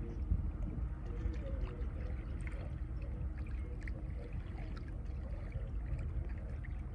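Lake water lapping and splashing at the shoreline, with a steady low rumble underneath.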